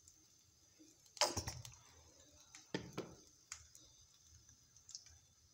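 A few light knocks and clicks of kitchen utensils being handled at a kadhai on a gas stove. The loudest comes about a second in and a double knock follows around three seconds in, over a faint steady hiss.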